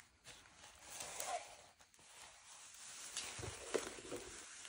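Faint rustling of a diamond painting canvas and its plastic cover film as it is slid across a table by hand, with a couple of soft knocks a little past halfway.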